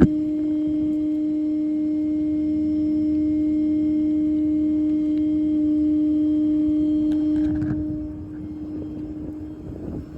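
Hydraulic system of a Ford F550 crane-and-compressor service truck whining under load: one steady held tone that fades out near the end, leaving a lower, rougher running noise.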